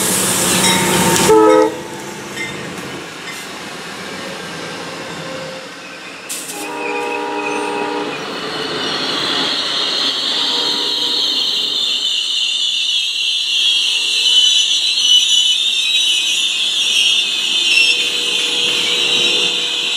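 Amtrak GE P42DC locomotive's horn chord ending in a loud rush as the locomotive passes in the first second and a half, then another horn blast about six to eight seconds in. After that, the passenger cars roll past with a steady high-pitched wheel squeal.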